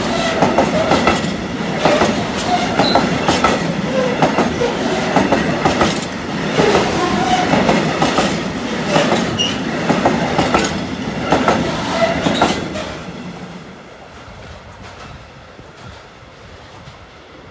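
Container flat wagons of a freight train rolling past close by: a steady rumble with repeated wheel clicks over rail joints and brief wheel squeals. About thirteen seconds in the last wagon goes by and the sound falls away as the train recedes.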